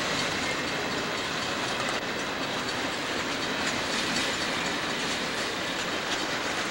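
Southern Pacific freight cars, tank cars and boxcars, rolling past close by: a steady noise of steel wheels on the rails.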